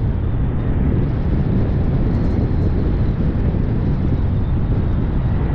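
Steady low rumble of a car driving along, road and wind noise.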